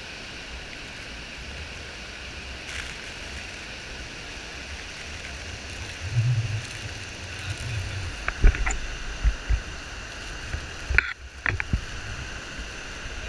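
Steady rushing roar of a large waterfall heard close by, with irregular low bumps and thumps on the microphone starting about six seconds in.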